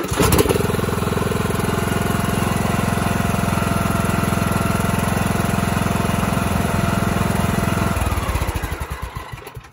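Husqvarna YTH18542 lawn tractor's 18.5 hp Briggs & Stratton engine cranked and catching at once, then running steadily. About eight seconds in it is shut off and runs down to a stop over a second or so.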